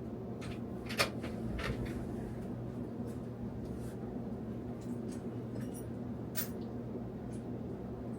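A few short, sharp clicks of hand snips cutting, the loudest about a second in and another at about six and a half seconds, over a steady low hum.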